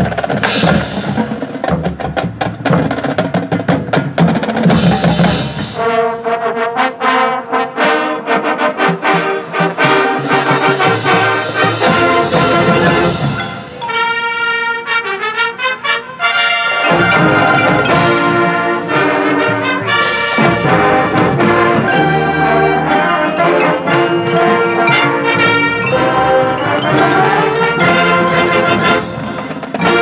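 Marching band playing: drums and percussion drive the first few seconds, then the brass enter with full held chords about six seconds in. The music drops to a quieter stretch around fourteen seconds before the full brass return about three seconds later.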